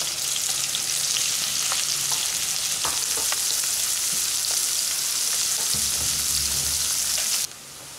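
Freshly added sliced onions sizzling in hot oil with cumin seeds in a kadhai: a steady hiss with scattered small crackles. The sizzle cuts off suddenly near the end.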